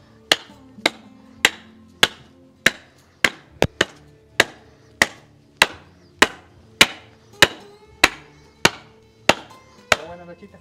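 Steady chopping blows, about one every 0.6 s with a quick double stroke near the middle, each a sharp crack with a short ring: a blade chopping through the rib bones of a hanging nilgai carcass.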